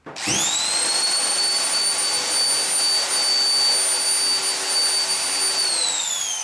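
Electric drill with a cleaning attachment, switched on and spinning up at once to a high steady whine with a hiss, scrubbing stubborn glue residue off a car panel. Near the end it is released and winds down, its pitch falling.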